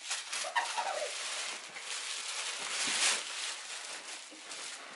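Tissue paper rustling and crinkling as a boxed gift is pulled out of a gift bag, with a louder crackle of paper about three seconds in.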